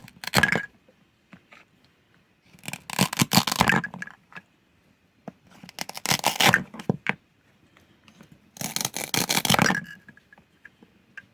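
Toy food being cut with a toy knife: four crackly scraping, tearing strokes, each about a second long, roughly three seconds apart.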